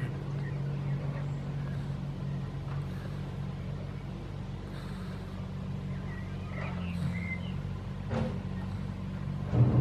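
A steady low engine hum runs throughout. Faint chirps come about seven seconds in, and a few sharp clicks follow near the end.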